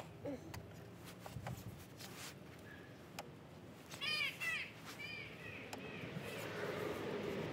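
A few faint clicks and light knocks from tools being handled. About four seconds in, a crow caws several times in quick succession and again a second later. A low rumble swells near the end.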